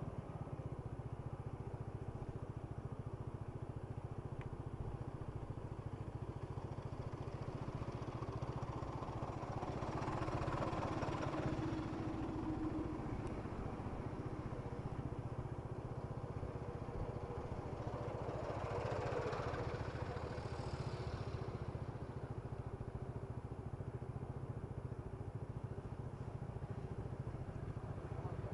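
Road traffic at a bridge crossing: engines of motorcycles and other vehicles running steadily, with two vehicles passing more loudly, one about a third of the way in and another about two-thirds through.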